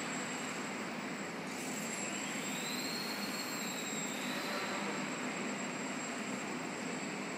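Small electric motor and propeller of a 150 g depron Yak-54 indoor model plane buzzing steadily in flight. About two seconds in its pitch climbs to a higher whine, then eases back down a couple of seconds later.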